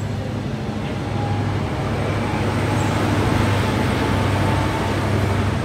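Class 43 HST power car's diesel engine running with a steady low drone, growing louder through the first half as the train nears.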